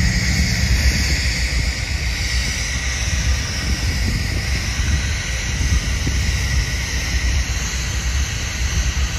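GE Dash 9-44CW diesel locomotives idling: a steady low engine rumble under a constant fan-like hiss.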